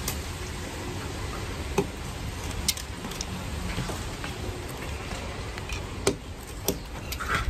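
Box-cutter knife cutting a filleted eel into pieces on a plastic cutting board: a few scattered sharp taps as the blade meets the board, over a steady low background rumble.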